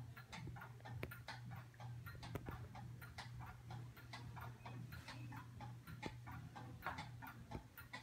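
HO-scale model trains running on the layout track, their wheels clicking over the rail joints in a quick, slightly uneven rhythm of about four to five clicks a second, over a steady low hum.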